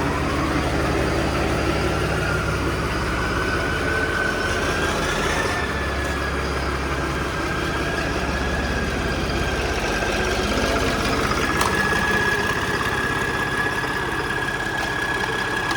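Tractor engine idling steadily just after being started, with a steady high whine over the engine noise.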